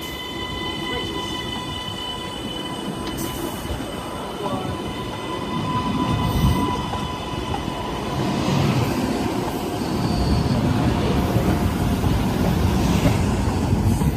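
MBTA Green Line Type 8 light rail train pulling away from the platform and picking up speed. A steady high whine of several tones at the start fades within a few seconds, then a rumble of wheels on rail builds as the cars pass, loudest in the second half.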